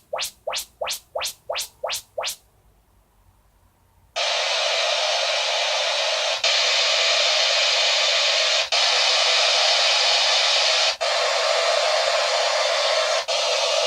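Yamaha YSP-2700 sound bar playing surround-setup test signals: about eight quick rising sweep tones, then after a short pause a steady hiss of test noise that briefly breaks about every two seconds.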